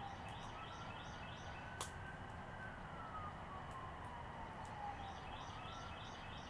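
A faint siren wailing, its pitch sliding slowly down, up and down again. A bird gives quick runs of chirps near the start and again near the end, and there is one sharp click about two seconds in.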